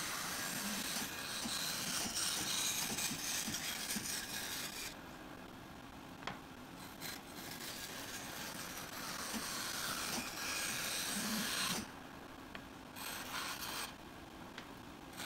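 Bandsaw with a narrow blade cutting curves in a wooden board, a rasping hiss of the blade in the wood. It comes in two long cuts, the first stopping about five seconds in and the second about twelve seconds in, then a short cut near the end, with the saw running more quietly between them.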